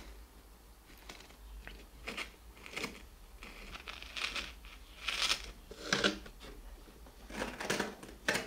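Short, irregular crinkling and crunching handling sounds as quail eggs are set into bird sand inside a homemade plastic water-bottle incubator.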